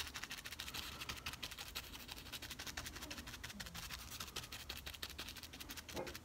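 Small paintbrush scrubbing and dabbing wet acrylic paint onto a painted styrofoam base: a faint, rapid run of scratchy bristle strokes, many a second, as the paint is feathered out.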